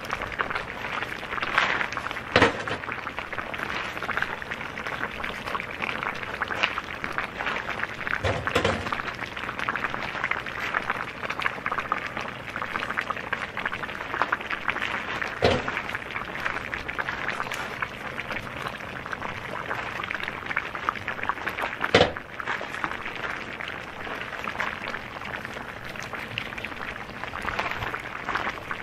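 Hot cooking stones being lifted one by one out of a cast-iron cauldron of meat with a ladle, knocking four times at intervals of about six seconds, over a steady crackling hiss.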